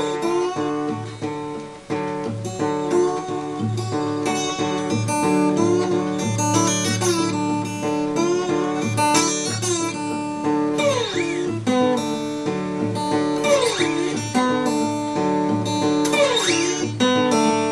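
Acoustic guitar played slide-style in country blues fashion: a steady pulsing bass note under the melody, with slid notes gliding down in pitch about three times in the second half.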